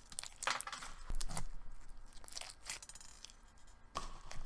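Clear slime mixed with fishbowl beads and pearls being squeezed and worked in the hands, giving irregular crackles and clicks.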